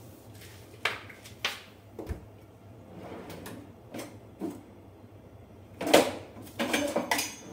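A few sharp knocks and clicks of kitchen things being handled, with a busier, louder run of clatter near the end.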